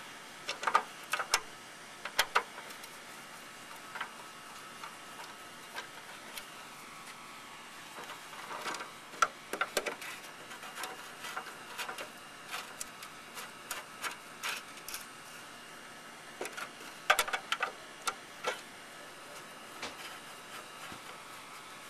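Screwdriver driving screws into a plastic lawnmower engine cover: scattered clicks and scrapes of the bit turning in the screw heads, in short clusters a few seconds apart.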